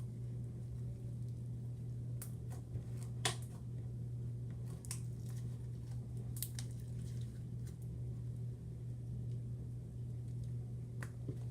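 Homemade slime being worked and stretched by hand, giving a few sharp wet clicks and pops spaced a second or more apart, over a steady low hum.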